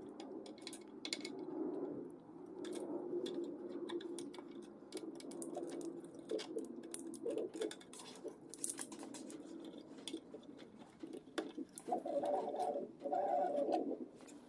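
Scattered light clicks and clinks of metal and plastic parts as a delta 3D printer's printhead is fitted to its carbon-fibre arms, over a steady hum.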